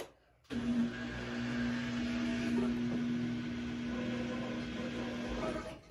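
Samsung front-load washing machine starting up after its start button is pressed: a steady hum over a hiss, beginning about half a second in and cutting off abruptly at the end.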